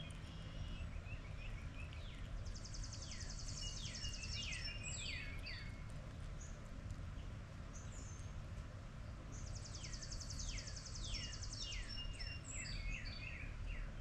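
A songbird singing two phrases about seven seconds apart, each a rapid high trill followed by a run of quick descending slurred notes, over a steady low background rumble.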